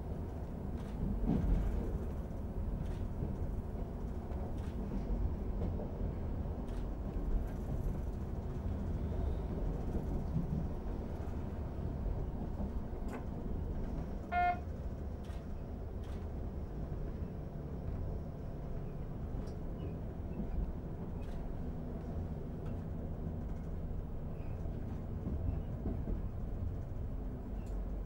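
Class 642 Desiro diesel multiple unit running, heard from the driver's cab: a steady low rumble of engine and wheels on the rails, with scattered clicks as the wheels pass over rail joints and points. A short beep sounds once about halfway through.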